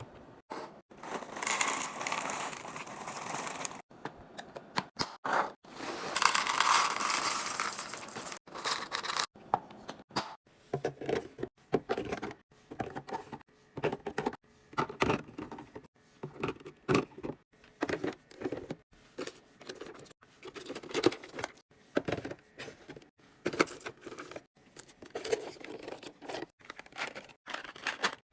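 Packaging crinkling and tearing in two long rustles, followed by a long run of short clacks and taps as items are handled and set down.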